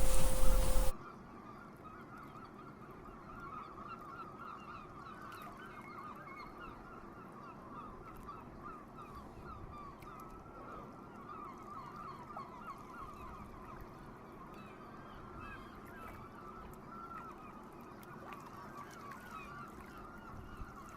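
A loud sound with a steady tone cuts off about a second in, leaving a faint, continuous chorus of many overlapping short bird calls from a flock.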